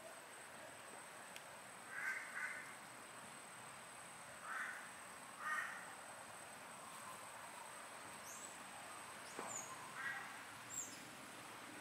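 A crow cawing: short harsh caws, a pair about two seconds in, then single ones, about five in all. Under them a faint steady high-pitched whine, and a few quick high chirps near the end.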